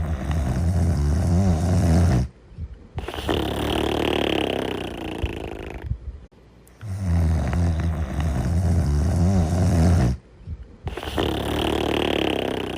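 Loud, slow snoring, two full breaths. Each breath starts with a low, pitched snore lasting two to three seconds, then a longer breathy, hissing part, with a short pause between breaths.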